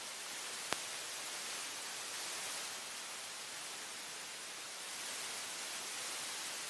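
Steady high hiss, with a single sharp click just under a second in.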